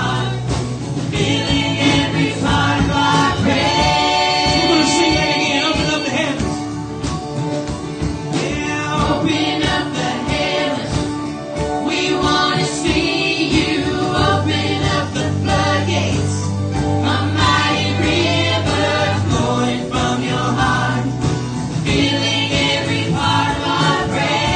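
Live church worship band playing a contemporary worship song, with several singers over guitar, keyboards and a steady beat.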